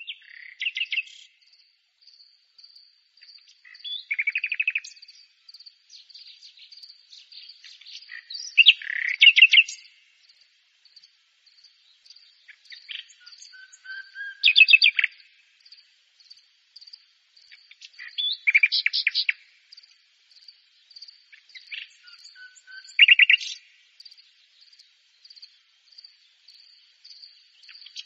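Common nightingale singing: loud phrases of rapid repeated notes about every four to five seconds, with quieter scattered notes between. A steady high insect trill runs underneath.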